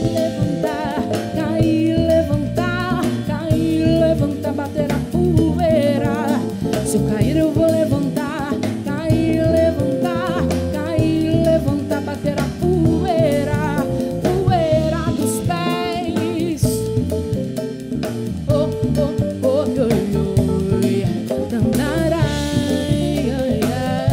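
Live soul-jazz band playing an instrumental passage over a steady groove: hand-played congas, drum kit, electric bass and keyboard, with a lead melody line that wavers in pitch over the top.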